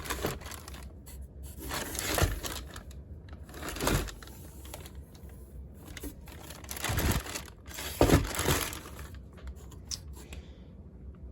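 Packaging crinkling and rustling as it is handled and torn open, in several short bursts.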